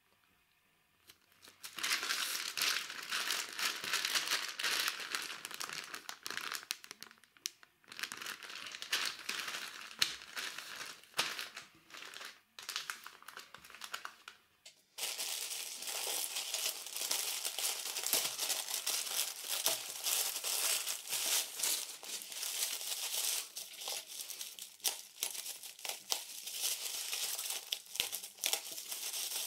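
Clear plastic bag crinkling as it is handled, starting about two seconds in and pausing briefly twice. After an abrupt cut about halfway through, bubble wrap crinkles steadily as a parcel is unwrapped.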